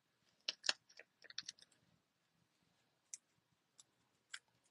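Faint clicks and taps of small die-cut cardstock pieces being picked up and set down on a card by hand: a quick run of clicks in the first second and a half, then three single ticks spaced about half a second apart.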